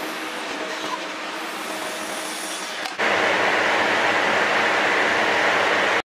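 Swiss-type CNC lathe running while it turns a brass part: a steady machine noise with faint steady tones. About three seconds in it changes abruptly to a louder, even hissing shop noise, which stops suddenly near the end.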